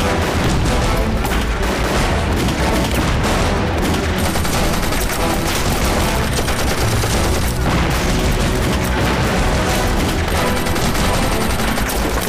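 Sustained battle gunfire, dense rifle and machine-gun fire with no let-up, laid over a dramatic film score.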